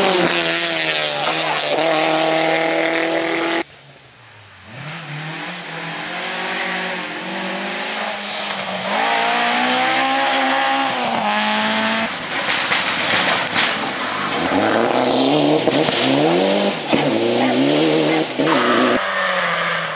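Rally car engines revving hard through the gears, several cars in turn, including a Ford Escort Mk2. Engine pitch climbs and falls with each gear change. The sound drops out briefly about four seconds in and changes abruptly twice more.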